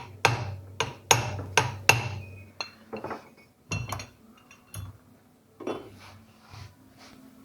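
Sharp metal-on-metal hammer taps, about five in the first two seconds, seating the retaining ring on the worm shaft of an electric power steering column. Scattered lighter clinks of metal parts and tools follow.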